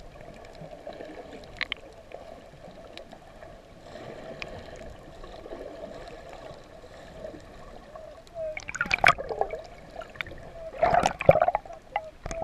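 Water heard through an underwater camera: a steady muffled underwater hum, broken twice by loud gurgling bursts about two-thirds of the way in and again near the end.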